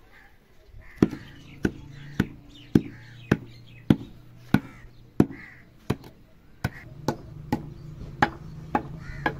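A wooden tool handle knocking down loose soil and bricks to tamp them level: about fifteen sharp blows, a little under two a second, starting about a second in.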